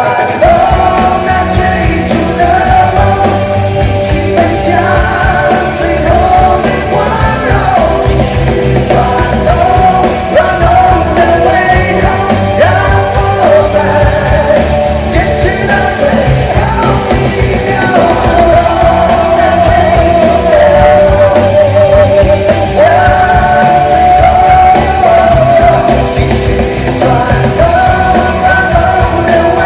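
A male vocalist singing a rock song live through a microphone over loud backing music with a steady beat, his long held notes carrying the melody.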